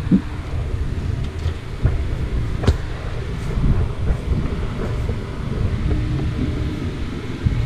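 Low, uneven rumble of wind and handling noise on a helmet-mounted camera's microphone, with a few sharp knocks.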